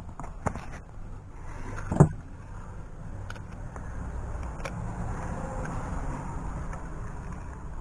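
Hand tools clicking and knocking against the engine while spark plugs are being removed, with one sharp knock about two seconds in, over a steady low background rumble.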